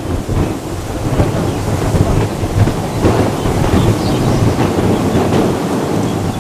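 Bombardier Global 7500 business jet's turbofan engines producing a loud, deep, continuous rumble with no clear tone.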